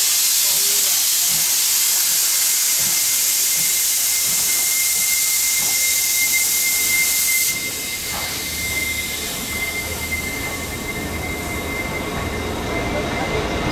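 Steam locomotive CT273, a C57-class 4-6-2, venting steam with a loud steady hiss and a thin whistling tone inside it, which cuts off suddenly about halfway through. A low rumble of the train follows.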